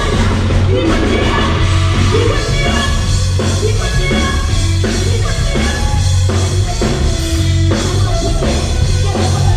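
Live gospel band music with a heavy bass line and drum kit, with singing in it.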